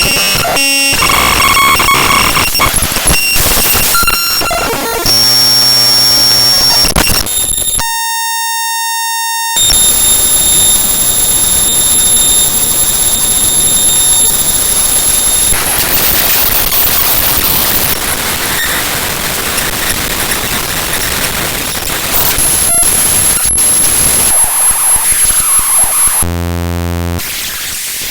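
Raw binary data of the OpenGL Extension Wrangler Library (GLEW) DLL played straight as audio samples: harsh digital noise and static, broken by buzzing tones. A clean buzz about eight seconds in lasts under two seconds, a long stretch of hiss follows, and a low buzz comes near the end.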